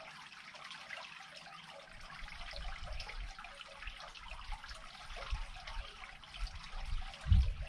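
Water trickling as a pool drains through a freshly unclogged culvert. Low rumbles come in from about two seconds in, with a louder low thump near the end.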